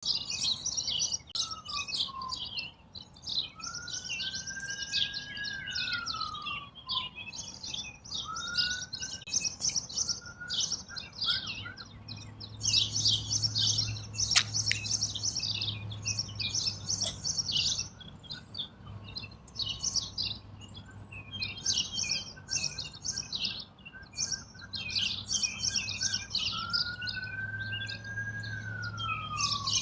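Many songbirds chirping and twittering in a busy, overlapping chorus. A slow whistle that rises, holds and then falls comes back several times. A low steady hum joins partway through.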